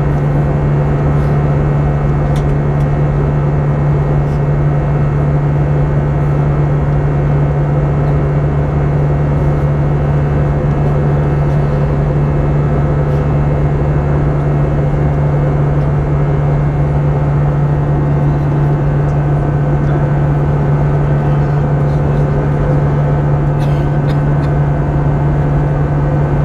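Steady cabin drone of an Airbus A320 airliner in flight: its CFM56 turbofan engines and the airflow over the fuselage. There is a strong low hum with fainter steady tones above it, and no change throughout.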